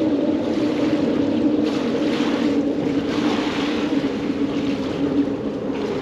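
A steady motor drone with water splashing and washing over it, the splashing swelling twice.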